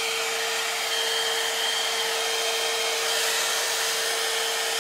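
Head Kandy Commitment Issues hot-air blow dry brush running steadily, a rush of blown air with a steady hum and a faint high whine underneath.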